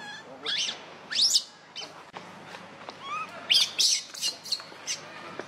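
Baby macaque crying: a string of short, high-pitched rising squeals, thickest about three and a half to four and a half seconds in.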